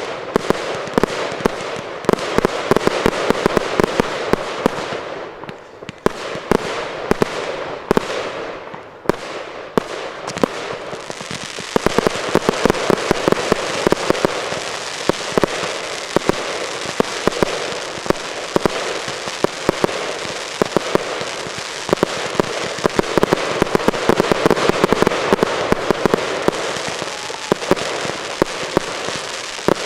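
Aerial fireworks going off in rapid succession: a dense barrage of crackling and bangs. It thins to separate booms for a few seconds about a fifth of the way in, then builds back into a continuous crackling barrage.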